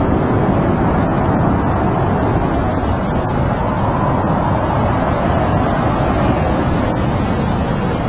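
Strong, steady snowstorm wind blowing past a tent, a deep continuous rush with a slight swell about four seconds in.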